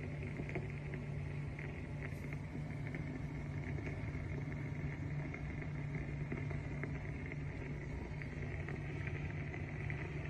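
Facial steamer running: a steady low hum with a faint crackle and hiss as it heats water into steam.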